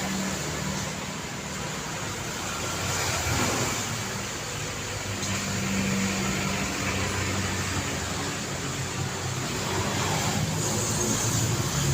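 Daytime city street traffic: a steady wash of passing cars and engines, swelling as vehicles go by about three seconds in, around six seconds and near the end.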